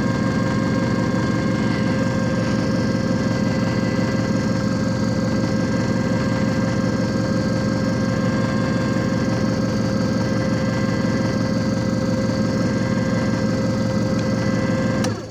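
JFJ Easy Pro disc repair machine running steadily with an even, multi-toned motor hum, then switching off just before the end, its pitch sagging as it stops.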